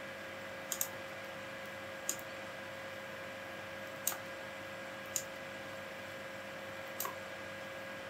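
Computer mouse clicking as pen-tool points are placed: a quick double click about a second in, then single clicks every second or two. A steady faint hum and hiss lies underneath.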